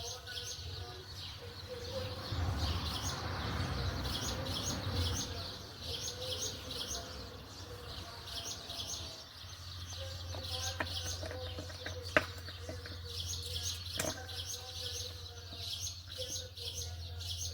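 Birds chirping in quick repeated high notes, with a low steady hum starting about ten seconds in and a few sharp clicks soon after.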